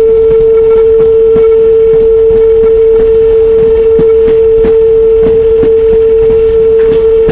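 Train horn sounding one long, unbroken steady note, loud over the rumble and the irregular clacking of the coach wheels on the rails.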